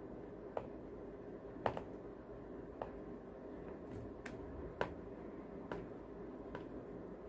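Knife cutting through a soft bread-and-banana pudding, with a handful of sharp, irregular clicks as the blade meets the plate beneath, over a low steady hum.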